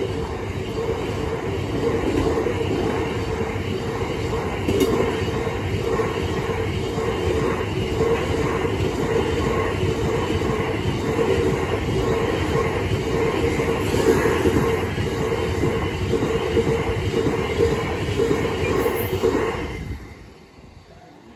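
Freight train of biomass hopper wagons rolling past: a steady rumble and rattle of wagon wheels on the rails that ends abruptly as the last wagon passes, near the end.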